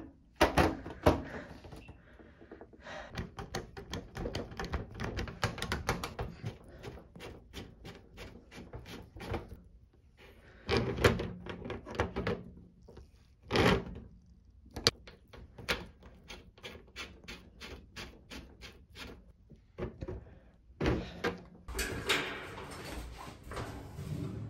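Clicks, knocks and rattles of hand work on a top-load washer's water inlet valve: wiring connectors snapping onto the valve's terminals, a wrench on the metal fill-hose coupling, and the cabinet being handled. The sound comes as runs of quick ticks broken by a few louder knocks, with scraping near the end.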